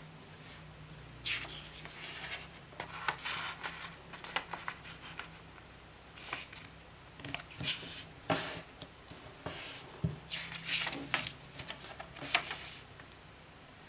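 A square sheet of origami paper rustling and crinkling as hands slide it across a tabletop, fold it in half and press the crease. The rustles come in short, irregular bursts.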